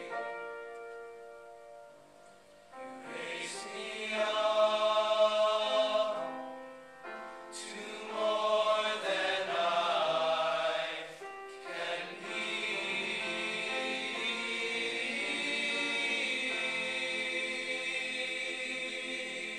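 Teenage boys' choir singing with grand piano accompaniment, phrases swelling and dipping, then settling about twelve seconds in on a long held closing chord.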